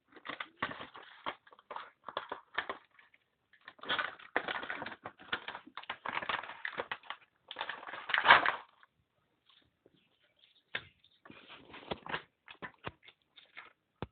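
A digital multimeter's packaging being opened by hand: irregular crinkling and rustling in bursts, loudest about eight seconds in, then a few sharp clicks near the end.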